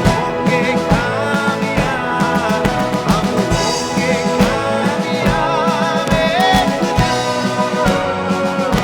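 Live band music: a steady drum beat under a melodic lead line that slides and bends in pitch, with keyboards.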